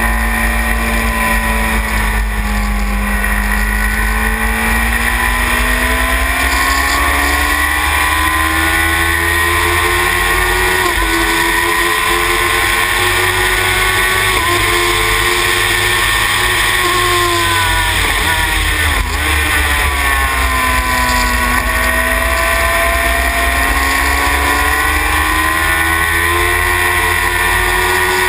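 Sylva Phoenix sports racer's engine running hard on track, heard from the cockpit. Its note climbs and falls with the corners and drops sharply about two-thirds of the way through before rising again.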